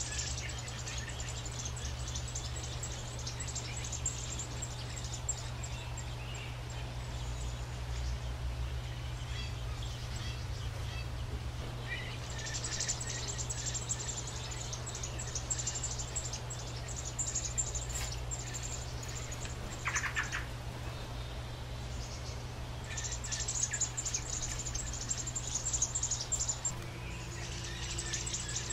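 American robin nestlings begging: rapid, high, insistent peeping in several bursts a few seconds long while the adult feeds them. A steady low hum runs underneath.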